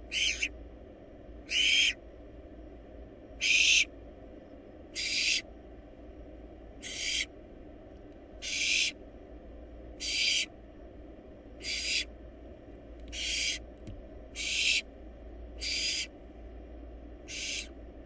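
Barn owl nestling begging calls: a harsh, rasping hiss of about half a second, repeated about every one and a half seconds, over a steady low hum.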